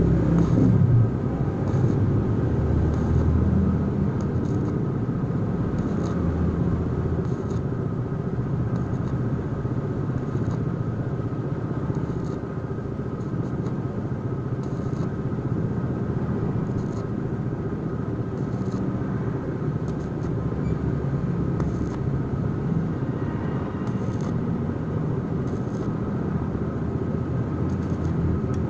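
Stick (arc) welding a stainless steel pipe joint with a stainless electrode: the arc crackles and sizzles steadily, with scattered sharp pops.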